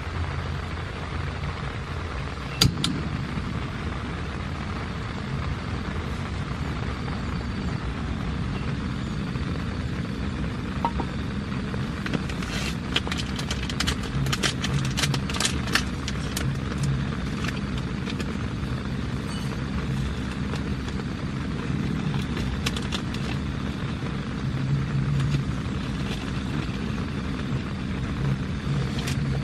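Heavy rain falling steadily, with a low rumble underneath and scattered sharp taps, a cluster of them about halfway through.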